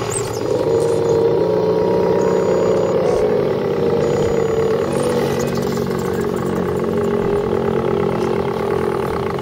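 Radio-controlled scale crawler's electric motor and gearbox whining steadily as it climbs, the pitch wavering slightly with throttle, with light crunching of its tyres on loose gravel.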